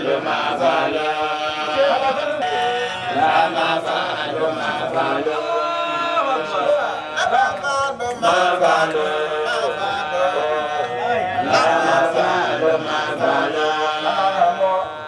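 Men's voices singing a melodic religious chant that carries on without a break, the sung lines rising and falling.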